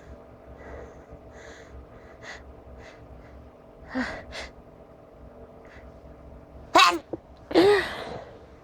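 A person sneezing: soft sniffs and a sharp double intake of breath about four seconds in, then two loud sneezes less than a second apart near the end, the second one longer and voiced.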